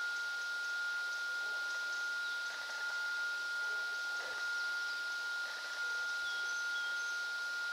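Outdoor background hiss with a steady, unwavering tone running underneath it, and a few faint short chirps near the end.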